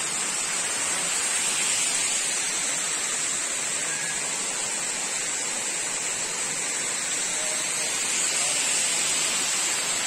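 Steady rushing of a tiered waterfall's cascades pouring into a rock plunge pool, with a steady high hiss above it.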